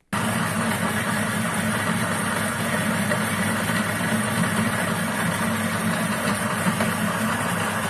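Niche conical burr coffee grinder running steadily as it grinds a dose of espresso beans, a motor hum with the grinding noise of the burrs. It starts abruptly.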